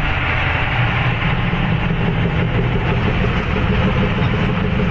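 A heavy engine running steadily, with a constant hiss over it.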